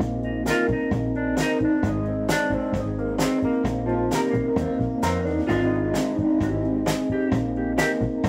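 Rock band playing an instrumental passage: a hollow-body electric guitar strumming chords over a steady drum beat with regular cymbal hits.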